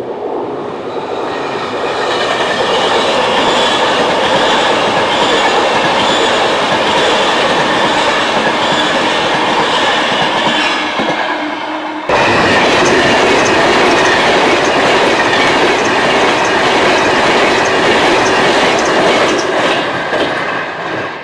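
A passenger or freight train passing close by at speed on the main line: loud wheel and rail noise with a steady whine. The sound builds over the first couple of seconds, jumps abruptly about twelve seconds in, and fades near the end.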